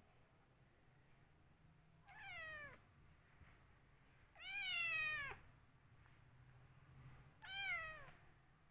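White Persian cat meowing three times, each call sliding down in pitch; the middle meow is the longest and loudest.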